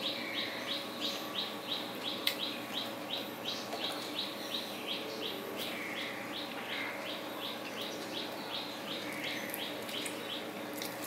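A bird calling: a fast, even series of short high chirps, about three a second, that stops near the end. A steady faint hum runs underneath.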